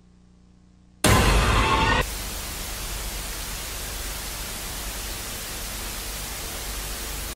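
TV static sound effect: about a second in, a sudden loud, harsh distorted burst, then a steady hiss of white noise that cuts off abruptly.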